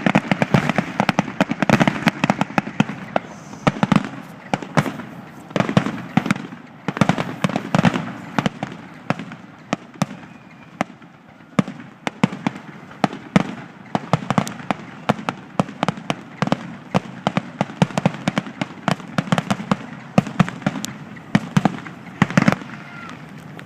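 Fireworks going off: a dense, irregular run of sharp cracks and bangs, many a second, with louder clusters every couple of seconds.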